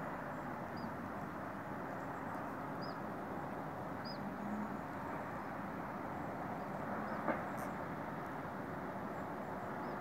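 Steady distant hum of town traffic heard from a hilltop, with a few short, high bird chirps every couple of seconds and a single faint click about seven seconds in.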